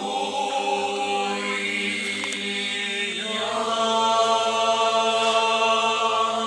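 Small mixed a cappella choir singing Orthodox church music in held chords, with a deep bass line sustained beneath. The chord changes about three seconds in.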